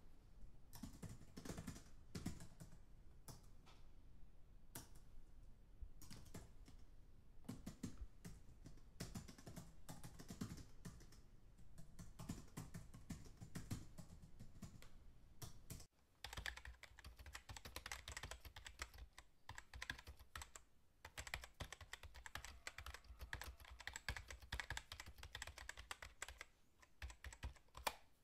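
Typing on a computer keyboard, a fast, irregular run of keystrokes. About 16 s in the sound cuts out for a moment, and a second, denser run of typing starts.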